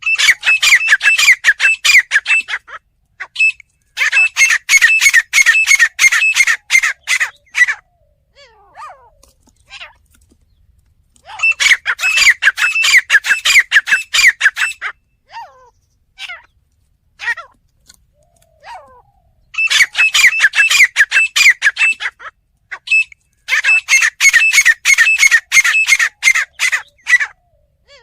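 Grey francolin (teetar) calling in five loud bouts, each a few seconds of rapid, repeated ringing notes, with short gaps and a few faint single notes in between.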